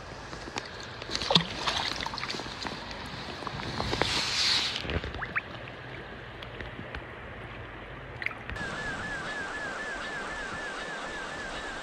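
Water splashing and sloshing as a wild brown trout is handled in a landing net and released by hand into shallow creek water, with several sharp splashes in the first five seconds. After a cut, the river's steady flowing hiss.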